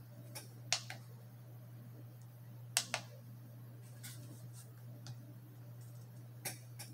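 A few faint clicks and taps from handling a digital trigger pull gauge and a revolver as the gauge arm is set on the trigger, the sharpest pair about three seconds in, over a steady low hum.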